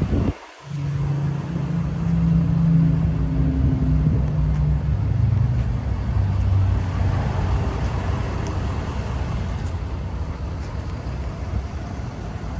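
A vehicle engine running with a steady low rumble. Its pitch steps a little lower about five seconds in, and the sound cuts out briefly just after the start.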